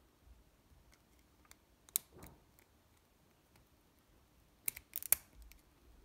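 Small metallic clicks of a hook pick and tension wrench working the pin stack of a brass Master Lock 140 padlock during single pin picking. There is one click about two seconds in and a quick run of clicks near the end, with little else in between.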